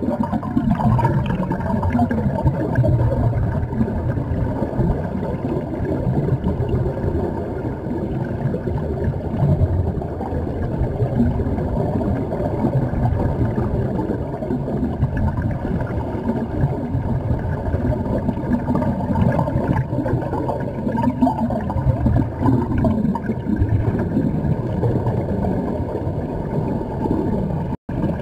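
Muffled underwater rumbling and bubbling picked up by a submerged camera, steady and without pitch, with a brief dropout near the end.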